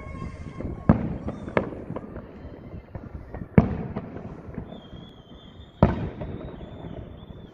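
Aerial fireworks shells bursting: three loud booms spaced about two and a half seconds apart, each trailing off in an echo, with a few smaller cracks just after the first.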